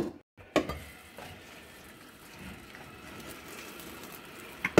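Kitchen faucet running steadily into a stainless steel pot of soaking yarn as the water is topped up, with a sharp knock near the end.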